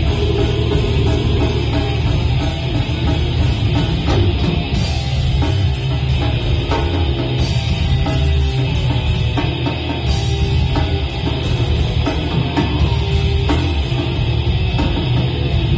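Heavy metal band playing live, with electric guitar and drum kit, loud and continuous and heavy in the bass.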